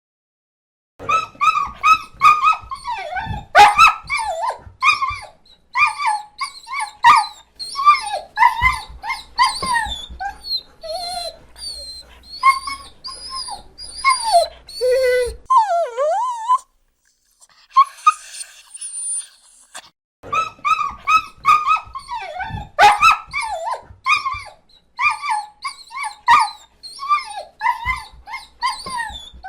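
Dog whimpering and whining: a fast run of short, high-pitched cries, many sliding down in pitch, with a short break a little past halfway.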